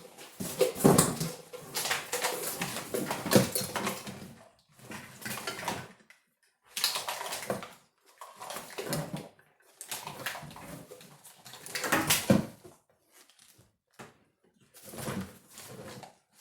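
Plastic-sheathed wires of an engine wiring harness being handled, pulled and cut, rustling and crackling in irregular bursts with short pauses between.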